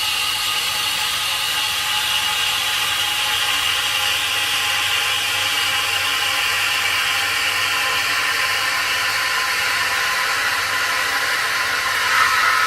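Breville Oracle's steam wand running on automatic, steaming and frothing milk in a jug: a loud, steady hiss with a whistling, screechy edge, growing shriller near the end as the milk heats.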